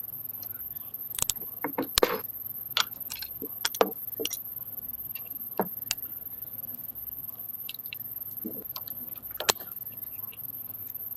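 Irregular clicks and light knocks of tools and small metal parts being handled during motorcycle work, over a steady faint high-pitched whine.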